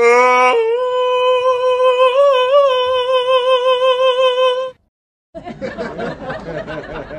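Puppy howling: one long, steady howl that rises in pitch at the start, wavers slightly in the middle and breaks off about four and a half seconds in. After a short gap a softer, rougher sound follows.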